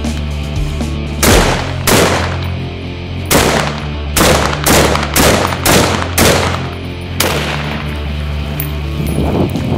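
Zastava M59/66 semi-automatic rifle in 7.62x39 firing about nine shots, the middle ones in a quick run about two a second, over background music.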